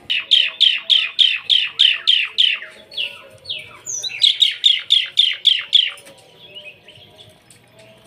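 Asian pied starling (jalak suren) calling: a fast run of about a dozen repeated falling notes, roughly four a second, then after a short break a second run of about eight. The notes stop about six seconds in.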